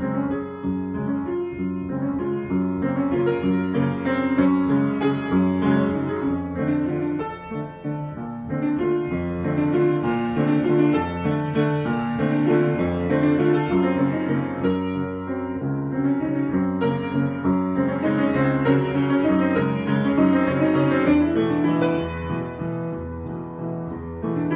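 Solo piano improvising, with a steady flow of notes and chords and no breaks.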